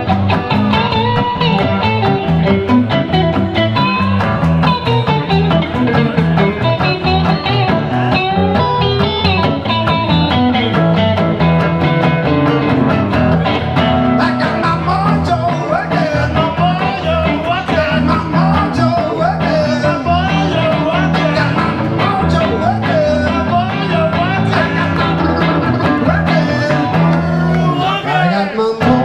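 A live blues duo of two guitars: an electric guitar plays a lead line full of bent, sliding notes over a second guitar's rhythm, with the lead getting busier about halfway through.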